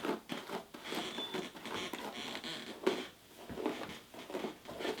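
Hairbrush strokes through nearly dry hair: a run of repeated brushing rustles, roughly one or two a second.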